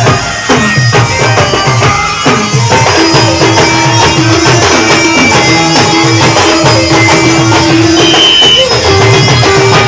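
Indian folk band music: a steady percussion rhythm under a melody, with one long held note from about three seconds in until near the end.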